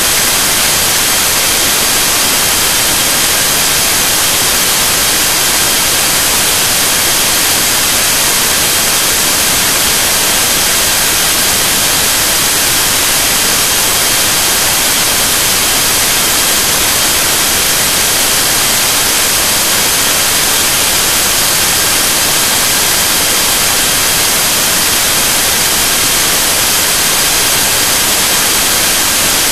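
Steady, loud hiss of static like white noise, strongest in the high end, with faint steady high-pitched tones running through it and no change throughout.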